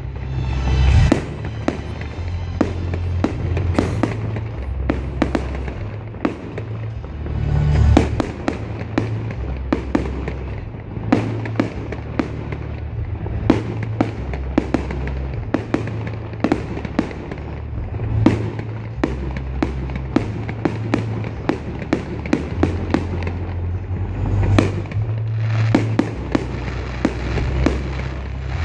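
Fireworks display: a steady run of sharp bangs and crackling bursts, several a second at the busiest, over loud music with a heavy bass line.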